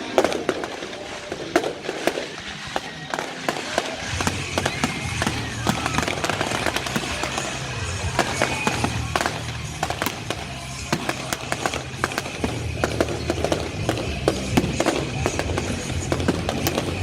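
Fireworks bursting and crackling in rapid, irregular cracks over music, with a bass beat coming in about four seconds in.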